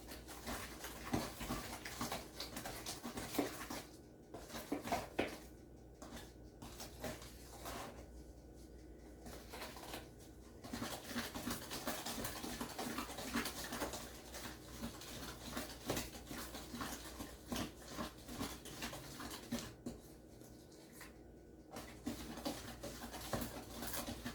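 A spoon stirring a thick butter, sugar and egg mixture by hand in a bowl: irregular scraping and light knocks against the bowl, with a few short pauses.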